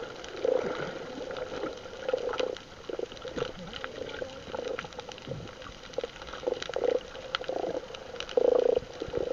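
Water bubbling and sloshing in irregular gurgles, with scattered small clicks.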